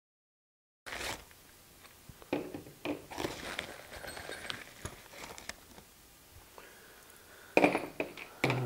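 Plastic parts bag crinkling and rustling as it is handled and opened, with small plastic and metal parts clicking as they are taken out, after a second of dead silence at the start.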